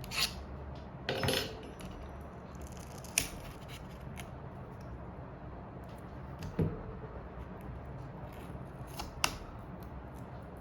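Small repair tools clicking and tapping against an iPhone 7 Plus's parts during a battery replacement: a handful of scattered sharp clicks, with a brief scrape about a second in, over a steady low hum.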